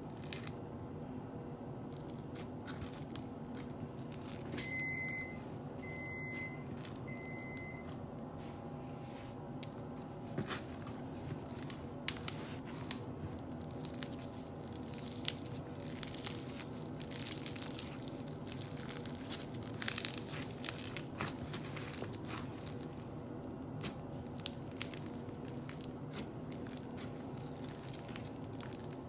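Crunchy slime being squeezed and poked, giving irregular crackles, clicks and pops over a steady low hum.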